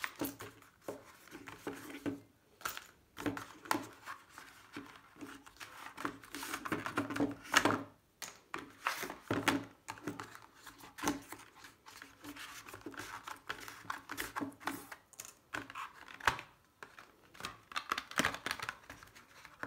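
Cardboard packaging being handled and opened: irregular rustling and scraping of card, with light clicks as a strap is worked out of its metal buckle and the box is lifted and turned.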